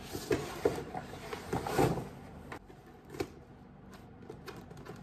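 Cardboard shoe boxes being handled and shifted in a stack, with knocks and rustling that are busiest in the first two seconds, one more knock after about three seconds, and light taps near the end.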